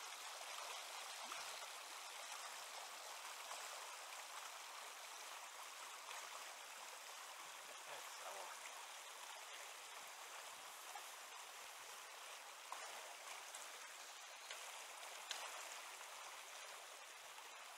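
Steady rushing of a shallow river current flowing over rocks and riffles.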